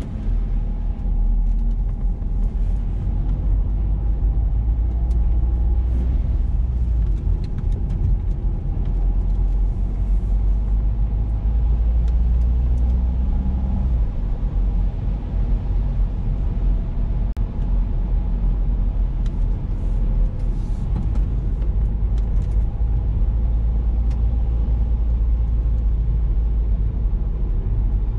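Car driving along a mountain road: steady low rumble of engine and road noise, with a faint steady hum above it.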